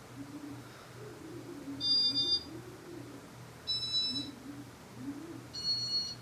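Three short electronic beeps about two seconds apart, each a high chord of several steady tones, from a 1994–95 Casablanca Venus ceiling fan's electronic control board running in demo mode, over a faint low hum.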